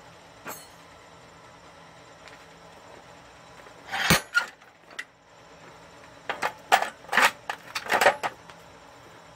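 Scattered metal clanks and clinks of steel bar stock and tools being handled at the forge: a single loud clank about four seconds in, then a quick run of sharper clinks from about six to eight seconds.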